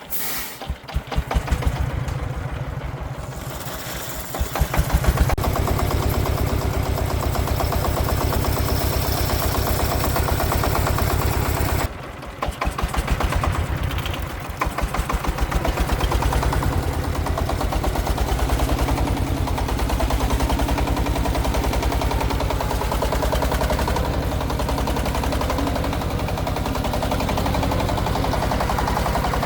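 Single-cylinder diesel engine of a công nông farm truck running with a fast, even thumping exhaust beat. The sound drops out briefly about twelve seconds in, then picks up again.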